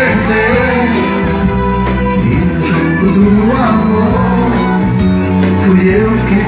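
Loud live band music played through a PA, with singing over held keyboard and bass chords.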